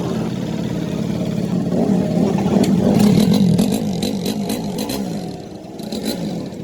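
A 125 cc motorcycle engine running through its silencer. About two seconds in it is revved in quick repeated throttle blips, the pitch rising and falling several times a second, with sharp ticking over the top; it then settles back toward idle near the end.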